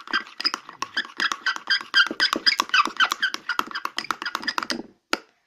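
Spoon stirring a runny mix of dishwashing liquid and salt in a bowl: quick, even scraping squeaks against the bowl, about four or five strokes a second, stopping about five seconds in.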